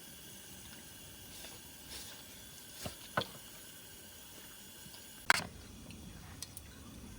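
A few light clicks and knocks of tableware being handled while eating, the sharpest and loudest about five seconds in, over a quiet background.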